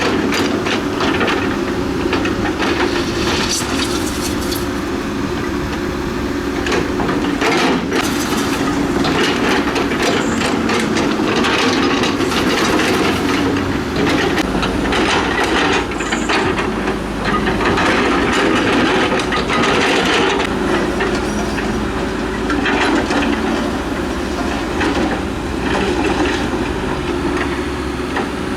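Tracked earthmoving machine working gravel: a diesel engine runs steadily under load while the steel tracks and blade rattle and clank irregularly.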